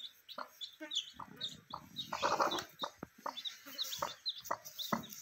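Newly hatched chicks peeping in a steady run of short high chirps, with a broody hen's short low clucks among them. A brief louder noise comes about two seconds in.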